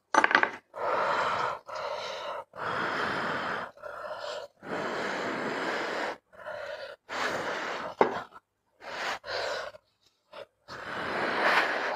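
Someone blowing on hot food to cool it: a string of long puffs of breath, most about a second each, with a short click about eight seconds in.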